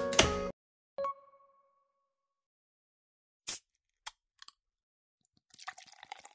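Background music stops abruptly, then a single bell-like ding rings and fades over about half a second. A few faint clicks follow, and a soft crackling rustle comes near the end.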